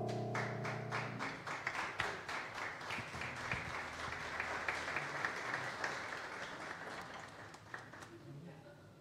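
Audience applauding at the end of a jazz number, the clapping dying away over several seconds. The band's last piano chord rings out under the first second of applause.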